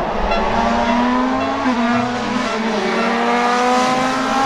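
Race car sound effect: the engine runs at high revs, its pitch creeping slowly upward with a brief dip about a second and a half in, over a steady rushing noise.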